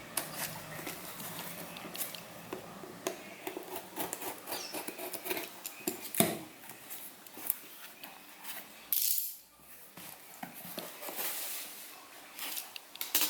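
Fitness-band packaging being handled and opened: irregular clicks, taps and rustles of cardboard and plastic, with a louder short scratchy rasp about nine seconds in.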